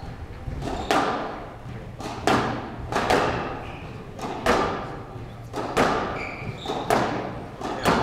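Squash rally: the ball is struck by rackets and smacks off the court walls in sharp hits, one or two a second, each followed by the echo of a large hall.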